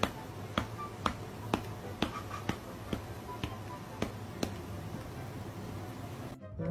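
A row of sharp clicks or snaps, about two a second, over a low steady hum; they stop about four and a half seconds in.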